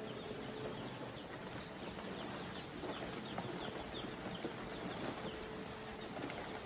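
A flock of chickens calling: many short, high, falling calls overlapping continuously, over a faint steady hum.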